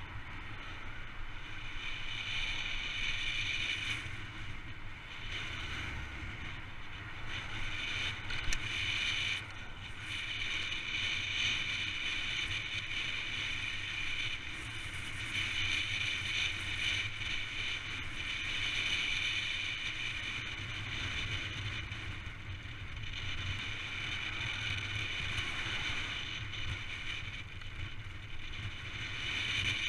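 Wind rushing over a handlebar-mounted action camera on a fast downhill run, mixed with mountain bike tyre noise on wet tarmac. The noise swells and eases every few seconds, with a single sharp click about eight and a half seconds in.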